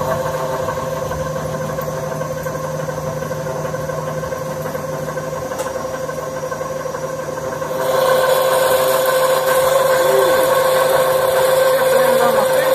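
CNC lathe turning a threaded rotary-connection pin while a coolant-flooded boring bar cuts inside the bore. It is a steady machine hum with a strong constant tone, and it gets louder about eight seconds in.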